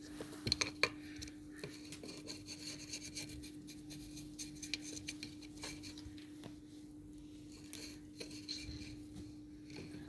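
Faint rubbing and scratching with scattered light clicks and taps, busiest in the first second, as a cat plays. Under it runs a steady low hum.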